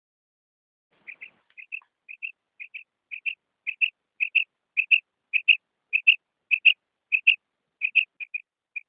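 Female quail calling: a steady series of short, high double notes, about two pairs a second. It starts about a second in, grows louder toward the middle, and gets a little softer and quicker near the end. This is the hen's call that hunters use to draw male quail.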